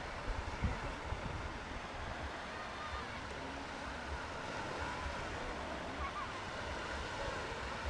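Sea waves washing steadily, with low gusts of wind rumbling on the microphone.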